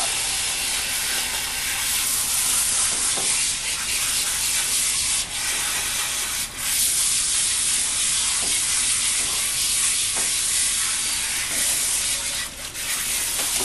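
Hose sprayer spraying water onto a dog's soapy coat to rinse the shampoo out: a steady hiss that dips briefly a few times.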